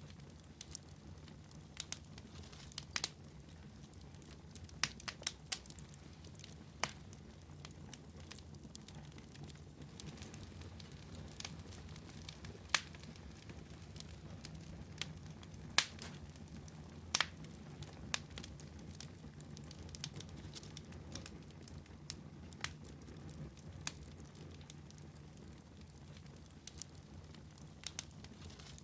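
Fire burning in a fireplace: irregular sharp crackles and pops, a few loud snaps among many fainter ones, over a steady low rumble.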